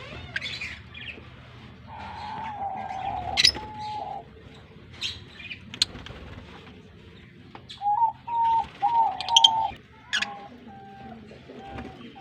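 A colony of African lovebirds chirping: sharp, shrill chirps come every second or two over a chatter of lower, steadier calls.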